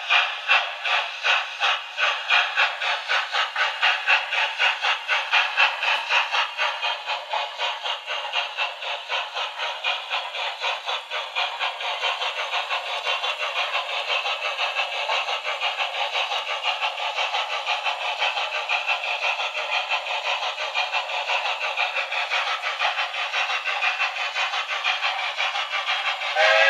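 Steam-locomotive exhaust chuffs played by a ZIMO DCC sound decoder in a Hornby model of the BR Standard 8 'Duke of Gloucester'. The chuffs are steady and rhythmic and come faster over the first several seconds, as the loco gathers speed, then keep an even pace. The sound is thin with no bass, coming from the model's small loudspeaker.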